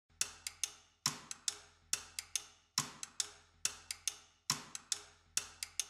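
Sparse percussive music: dry, sharp wood-block-like clicks in a repeating pattern of one accented click followed by two lighter ones, a little faster than once a second.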